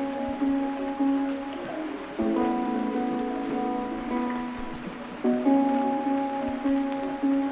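Background music on a plucked string instrument: held, ringing chords, with a new chord struck twice, about every three seconds.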